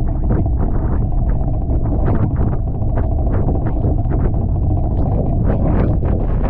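Wind buffeting the microphone over rushing water aboard a Tornado catamaran under sail, with frequent short splashes and slaps throughout.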